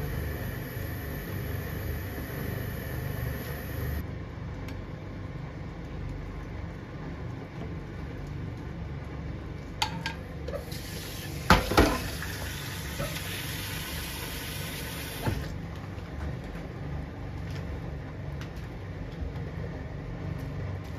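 Ramen noodles boiling and bubbling in a pan of water, stirred with tongs. Then, after a cut, a few sharp clattering knocks around the middle, followed by about five seconds of running or pouring water, all over a steady low hum.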